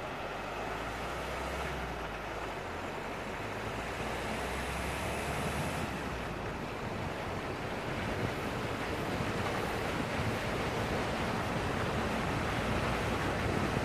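Steady rushing noise of wind buffeting the microphone of a camera on a vehicle moving along wet sand, growing gradually louder, with a low rumble during the first half.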